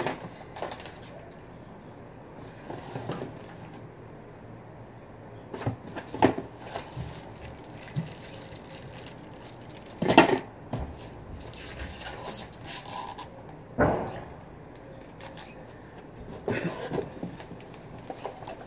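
Plastic sheeting and cardboard packing being handled and rustled, with scattered sharp knocks; the loudest knocks come about ten seconds in and again some four seconds later.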